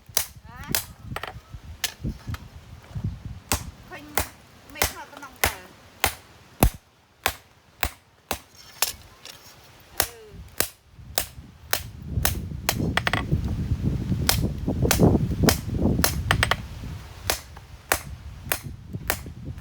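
Hammer blows on metal, sharp irregular strikes about one to two a second, typical of forging a knife blade on an anvil. A low rumble joins the strikes from about twelve seconds in.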